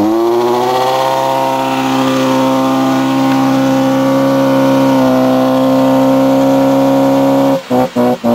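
Mazda Precidia's engine held at high revs for a burnout, a loud steady drone from the exhaust. Near the end the revs break into quick on-off pulses, about three a second.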